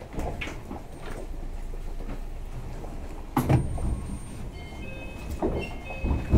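Tama Toshi Monorail 1000-series train standing at its terminal platform, a low steady hum under it. A sharp knock comes about three and a half seconds in, a few faint short high tones follow, and another knock comes at the very end.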